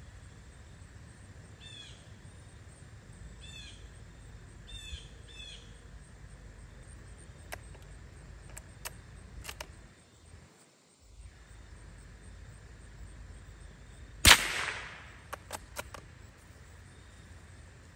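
A single sharp .22 LR shot from a Remington Model 512 Sportmaster bolt-action rifle, about three-quarters of the way through, followed quickly by several clicks of the bolt being worked. Before it come a few light metallic clicks, and in the first few seconds a songbird gives short falling chirps several times.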